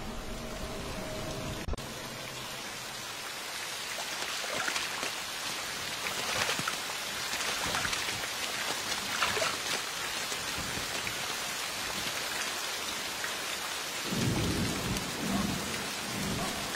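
Heavy rain pouring down and splashing into mud, with a few louder splashes, and a low rumble of thunder near the end.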